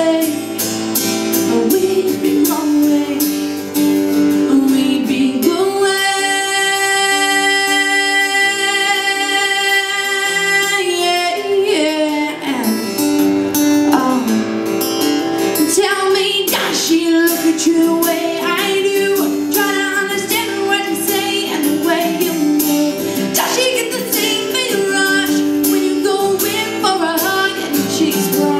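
Live acoustic duo: a woman singing over a strummed acoustic guitar, with one long held note about six seconds in that lasts some five seconds.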